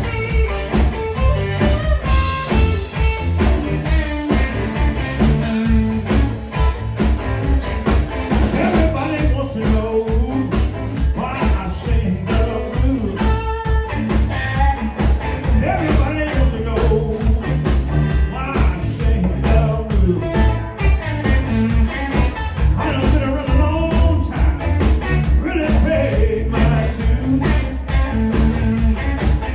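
Live blues band playing with a steady beat.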